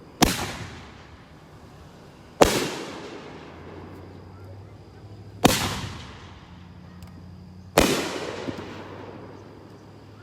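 A 9-shot consumer firework cake firing: four loud bangs a couple of seconds apart, each trailing off in a fading echo.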